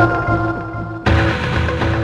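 Live electronic synth-pop music from a concert bootleg: steady held synth notes over a pulsing bass break off about a second in, and a sudden noisy crash takes over as the level begins to fall.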